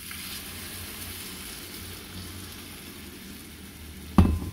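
Blended tomato sauce poured into a hot frying pan of browned pork and onions, sizzling steadily as it deglazes the browned bits on the pan. A brief loud knock about four seconds in.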